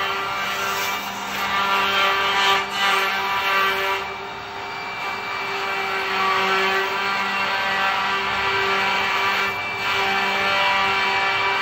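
Andreoni Standard 12 multi-spindle copy-milling machine running, its router spindles carving wooden blanks: a steady whine with a cutting noise that swells and eases as the tracer is guided along the template.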